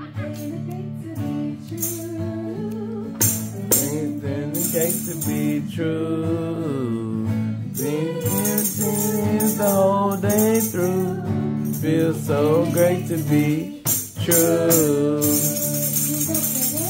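Acoustic guitar strummed steadily while a woman sings a children's song. A tambourine is struck now and then, and its jingles rattle in short bursts.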